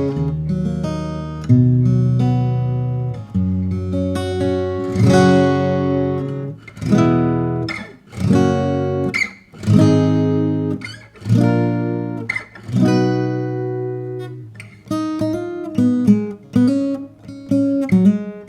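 Giannini SF14 steel-string acoustic guitar played unplugged: full chords strummed every second or two and left to ring, giving way to quicker picked notes near the end. The guitar is fresh out of the box and out of tune.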